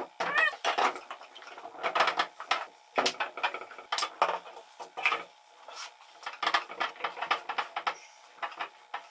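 Steel bar clamps being set and screwed tight around a glued-up wooden shelf box: irregular clusters of sharp metallic clinks and knocks as the clamps are handled and their bars and jaws strike the wood and the bench.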